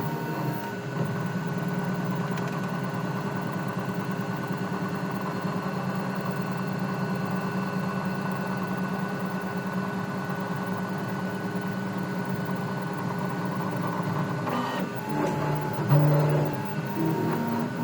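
Qidi X-Smart 3 3D printer running. Its motors give short stepped tones at the start and again near the end, and in between there is a long, steady, low rubbing noise: the strange rubbing sound the owner is asking about.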